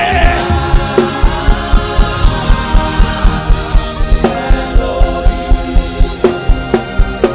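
Gospel worship music with a fast, steady drum beat under sustained instrument chords, and a singing voice in short phrases.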